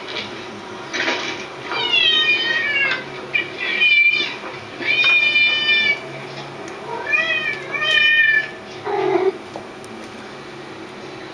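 Cat meows, about six in a row, several falling in pitch, with a shorter, lower meow near the end.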